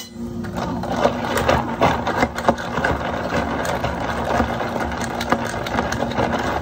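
Ice rattling fast against a long spoon and the walls of a plastic cup as a cup of citron ade is stirred hard, starting about half a second in, to mix in the thick yuja syrup. A steady low hum runs underneath.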